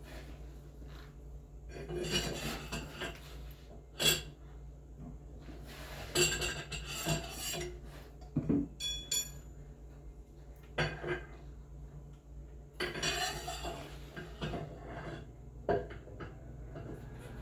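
Metal tools and parts clinking and scraping in several irregular bursts, with one sharp metallic tap about four seconds in.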